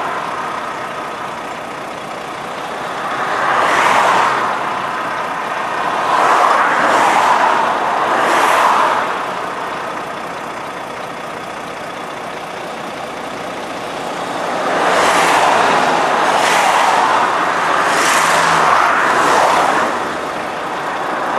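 Motorway traffic: vehicles passing one after another, each rushing past as a swell that rises and fades over a couple of seconds, with a quieter stretch in the middle.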